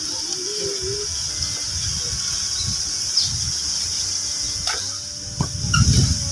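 Outdoor background of a steady high hiss, with gusts of wind buffeting the microphone that grow louder near the end. A single sharp knock comes about five seconds in.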